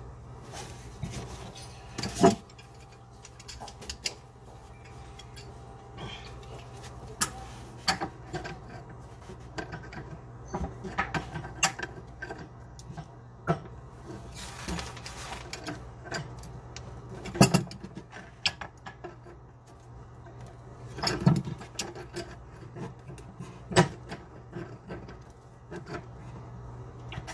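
Irregular clicks, knocks and taps of a wrench and metal fittings as a water supply line is connected and tightened to a bathroom sink faucet, with a few sharper knocks, over a steady low hum.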